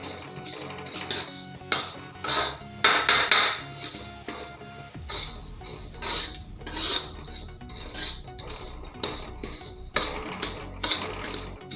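A spoon stirring and scraping poppy seeds roasting in ghee in a kadhai, in a series of irregular scraping strokes against the pan.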